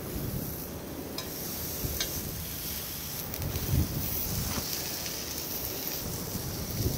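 Thin-sliced pork belly rolled around enoki mushrooms sizzling as it grills, a steady hiss, with wind rumbling on the microphone in uneven gusts.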